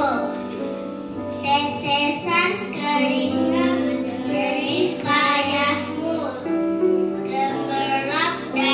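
Young children singing into microphones over a music backing track, their sung notes held and gliding above steady bass notes that change every second or two.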